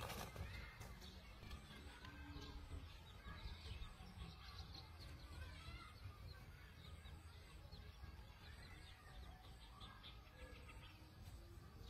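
Faint birds chirping and twittering in many short, quick calls over a low background hum.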